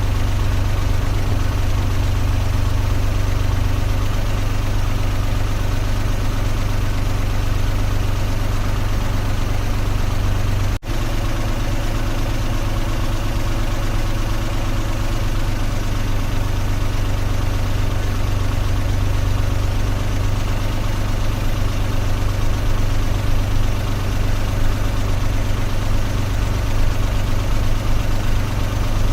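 Car engine running steadily, a low even drone with no revving. There is a brief dropout about eleven seconds in.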